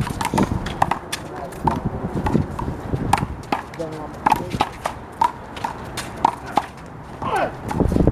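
A rubber handball in a fast one-wall rally, slapped by hand and rebounding off the wall and pavement. It makes a string of sharp smacks, about two or three a second.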